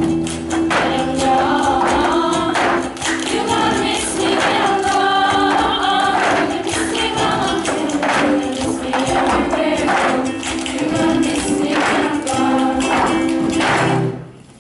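A song sung by a group of voices over band backing with regular percussion hits, stopping suddenly near the end.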